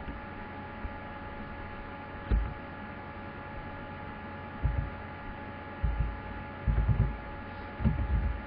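A steady hum of several fixed tones, with a few short, dull, low thumps scattered through it.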